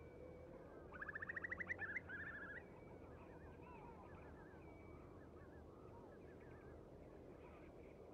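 Shorebird calls on a tidal mudflat: about a second in, a wading bird gives a fast run of piping notes that grows louder, followed by a shorter trailing series. Faint scattered calls of other waders continue throughout.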